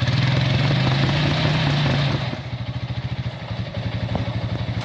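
Honda Rancher ATV's single-cylinder four-stroke engine revved hard for about two seconds, then easing back to a lower run. The quad is stuck fast in a gully, so the engine is working under load without getting it free.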